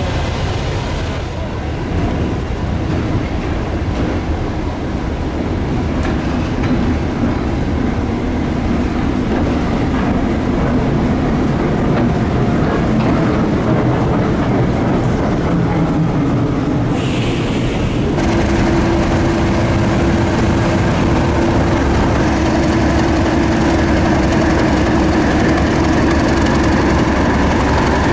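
Heritage diesel locomotive running with a heavy, steady engine sound and train noise on the rails. A steady hum joins about eighteen seconds in.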